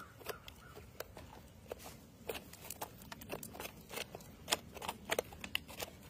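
Emus pecking feed from a trough: irregular sharp taps and clicks of their beaks striking the feed and the trough, several a second, louder in the second half.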